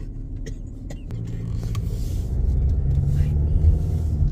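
Car engine and tyre rumble heard from inside the cabin, growing louder from about a second in as the car speeds up.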